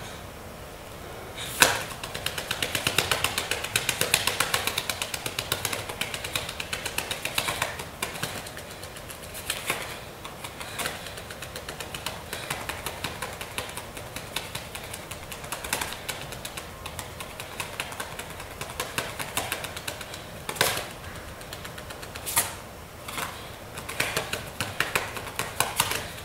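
Rapid, dry clicking and crackling, many clicks a second, swelling and thinning in waves, with a few sharper, louder clicks scattered through it, the loudest about a second and a half in.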